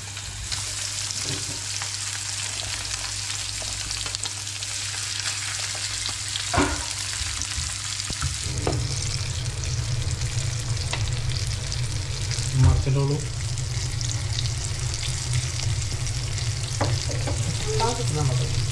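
Masala-coated fish sizzling steadily as it shallow-fries in hot oil in a non-stick pan, with a few sharp clanks of cookware against the pan, the loudest about two thirds of the way through.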